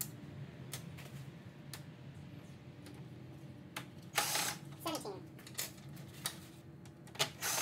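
Power drill driver running in short bursts to back out screws from a Toyota Tacoma's plastic grille and grille shroud, one burst about four seconds in and another near the end, with scattered sharp clicks in between.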